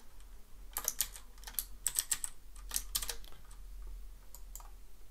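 Typing on a computer keyboard: a quick run of keystroke clicks between about one and three seconds in, then a few scattered clicks.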